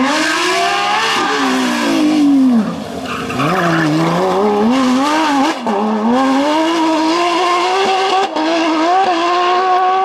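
Porsche 997 GT3 rally car's naturally aspirated flat-six engine at high revs, its pitch climbing and falling as it accelerates and lifts. After a drop about three seconds in, it climbs again with brief breaks near the middle and toward the end, as at upshifts.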